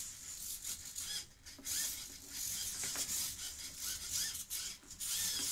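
Metal-gear hobby servo motors of a 3D-printed robot arm whirring in many short rising and falling whines as the arm moves, with a faint gear rasp.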